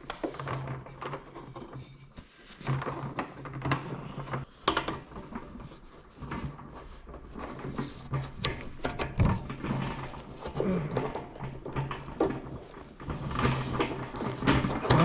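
Parts of a piece of shop equipment being handled and fitted together by hand: scattered clicks, knocks and rattles over a steady low hum.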